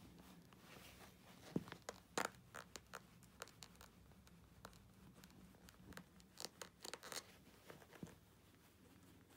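Faint, scattered rustles and small clicks of movement as legs in trousers and leather loafers shift on a rug, loudest about one and a half to two seconds in and again around six to seven seconds, over quiet room tone.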